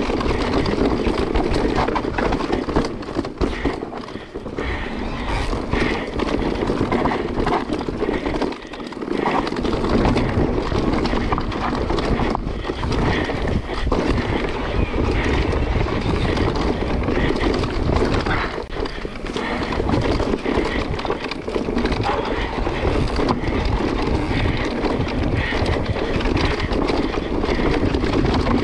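Decathlon Stilus mountain bike riding fast down a dirt trail: steady tyre and wind rush with constant rattling and knocking of the bike over rough ground. The noise eases briefly about 4, 9 and 19 seconds in.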